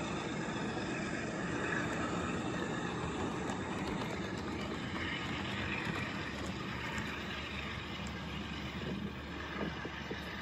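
LEGO train running on plastic track: a steady whir and rattle from its electric motor and wheels, easing off slightly near the end as it moves away.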